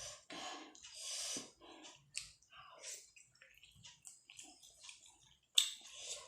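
Close-miked chewing of chicken momos (steamed dumplings): irregular mouth and chewing sounds, with a sharper, louder burst near the end.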